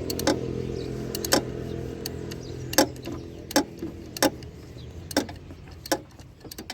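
Sharp metallic clicks and knocks, irregular at roughly one a second, from tools working on the alternator's clutch pulley, over a steady low hum that fades away about five seconds in.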